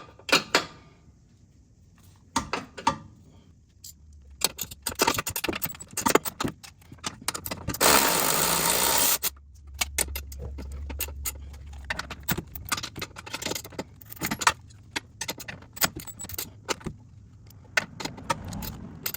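Wrench and socket clinking and clicking against steel nuts and bolts as they are loosened and removed, with a loud, noisy burst of about a second and a half about eight seconds in.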